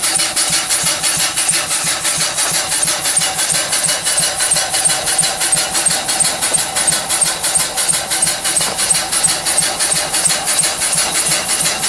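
Stuart 5A steam engine running at a slow idle, its exhaust beating in a quick, even rhythm as it belt-drives an alternator charging a battery.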